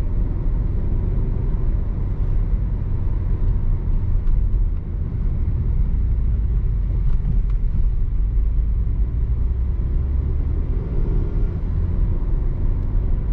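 Car driving on a road: a steady low rumble of engine and tyre noise.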